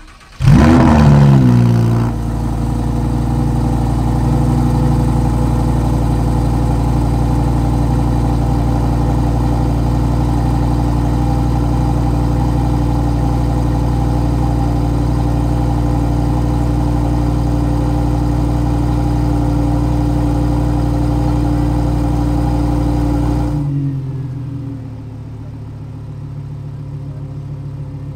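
2018 Lamborghini Huracán Performante's 5.2-litre V10 cold-starting: it fires and flares loudly, the loudest moment, then settles within about two seconds into a steady cold-start idle. Near the end the exhaust valves close, and the idle turns sharply quieter and duller.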